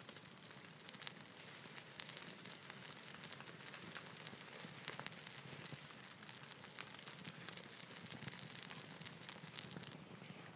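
Small fire of freshly lit split kindling crackling: many quick, irregular snaps and pops over a faint hiss.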